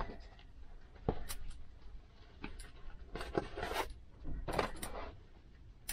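Fabric curtains rustling as they are handled and unfolded, in several short rustles, with a light knock about a second in.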